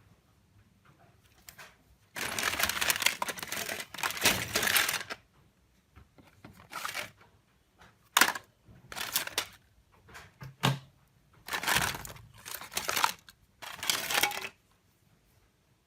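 Bursts of scraping and crinkling as the casing parts of an old Nokia E71 phone are handled and worked apart by hand: a longer stretch about two seconds in, then a string of shorter scrapes.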